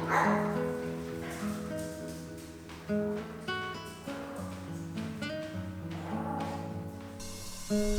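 Background music led by plucked acoustic guitar playing a gentle melody. Near the end the arrangement gets louder and fuller.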